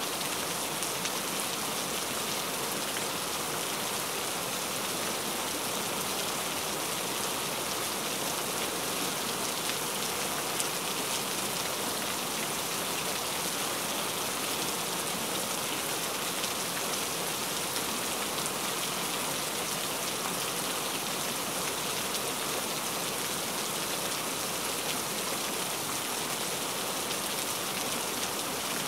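Steady recorded rain, an even hiss of falling rain that never lets up, used as the cover sound over a subliminal's hidden affirmations.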